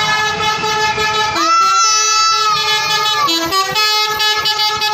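Telolet basuri bus horn playing a tune: chords of several tones chopped into quick pulses, with a smoother held chord that slides up in pitch about a second and a half in and drops away about a second later.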